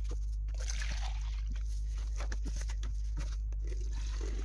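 Liquid poured and sloshing from a large plastic bottle into a plastic jug, a faint trickle with light plastic handling clicks, over a steady low hum.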